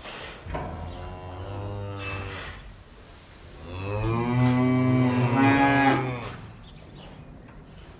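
Cattle mooing: two long moos, the second one, about four seconds in, louder than the first.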